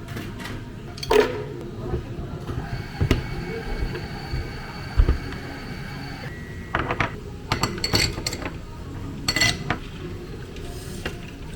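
Cafe counter work sounds: scattered clinks and knocks of cups, utensils and dishes being handled, over a steady low hum. A thin steady tone runs for a few seconds in the middle.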